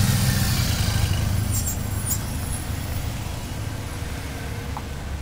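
A motorcycle and support cars of a bike-race caravan passing close by, their engines and tyres making a low rumble. The rumble is loudest in the first second or so, then slowly fades. A couple of brief high clicks come about two seconds in.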